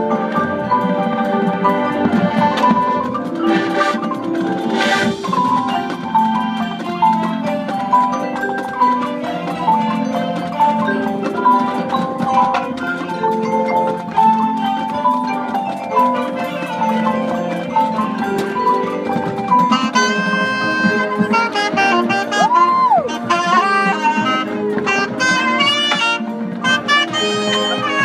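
High school marching band playing its competition show, with mallet percussion such as marimba and xylophone prominent over the band. Brass comes in stronger and brighter in the last third.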